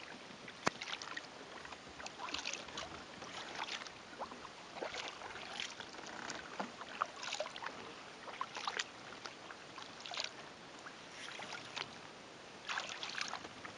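Double-bladed kayak paddle strokes through calm water: the blades dip and pull with short splashes and drips about every second or so, over a soft steady wash of water.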